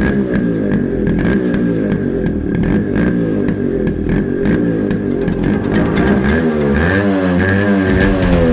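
A motorcycle engine revving up and down repeatedly, its pitch rising and falling most clearly in the second half.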